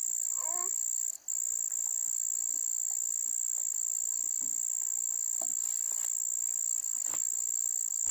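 Steady high-pitched insect chorus that drops out for a moment about a second in.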